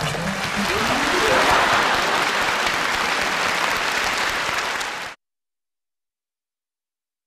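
Audience applauding, a dense loud clapping, with a rising shout in the first second. It cuts off abruptly about five seconds in.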